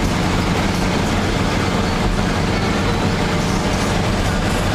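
Car driving at a steady speed on a paved road, heard from inside the cabin: a steady low engine hum under tyre and road noise.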